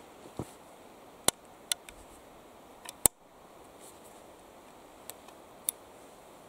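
Action of a Remington Rolling Block No. 1½ sporting rifle being worked by hand: a series of short, sharp metallic clicks from the hammer and rolling breechblock. The loudest come about a second in and about three seconds in.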